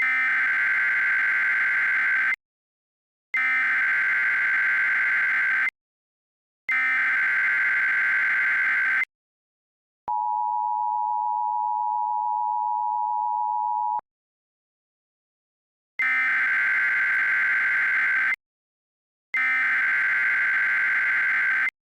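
Emergency Alert System tones. Three bursts of the SAME digital header, each about two and a half seconds long with short gaps, are followed by the steady two-tone EAS attention signal for about four seconds. After a two-second pause, two more header bursts follow.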